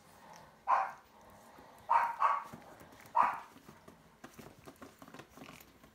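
A dog barking: four short barks, two of them close together in the middle, with faint scattered clicks and taps between them.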